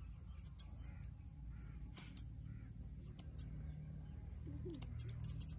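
Barber's scissors snipping moustache hair close up: a few separate crisp snips, then a quick run of snips near the end.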